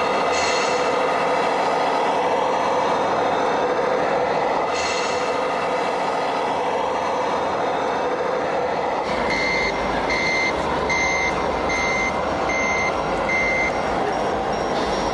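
Reversing beeper of an RC model truck's sound module, about nine seconds in: six even single-pitch beeps, a little under a second apart, over a steady running noise, with two short hisses before the beeps start.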